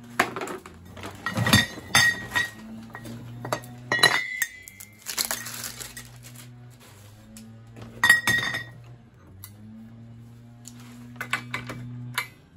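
Metal nitrous oxide cream-charger canisters clinking and knocking together as they are handled in a pile, with a run of sharp, ringing clinks. The loudest come in the first two seconds, at about four seconds and at about eight seconds.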